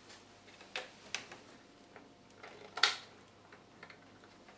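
Faint handling clicks and taps of a SATA data cable and its plastic connector being moved about inside a PC case, a few separate clicks with the loudest about three seconds in.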